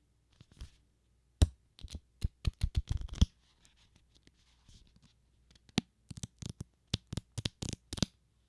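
Paper pages of a book being handled and turned, in quick flicks and rustles. Two flurries of strokes come about a second and a half in and again near the end, with a quiet pause between.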